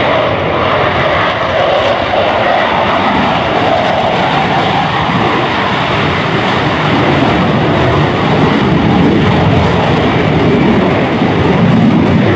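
F/A-18 Super Hornet's twin F414 turbofan jet engines running loud at high power as the jet takes off and climbs away, a steady rushing roar with the low rumble swelling near the end.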